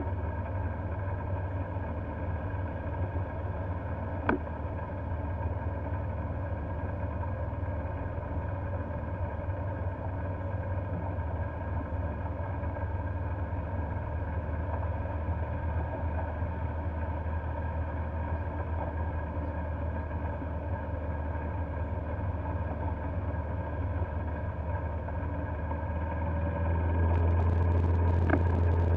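Golf cart running steadily as it drives along a paved road, a constant drone with a strong low hum that grows louder near the end. A single faint click about four seconds in.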